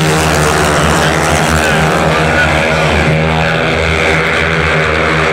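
A pack of 500 cc single-cylinder long-track racing motorcycles racing together through a bend, their engines loud and steady, the pitch wavering up and down as the riders work the throttles.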